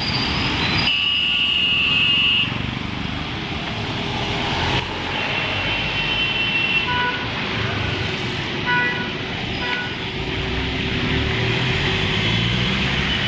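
Road traffic on a wet road: vehicle engines running past over a steady tyre-and-rain hiss. A horn sounds for about a second and a half near the start, and a few short toots follow around the middle.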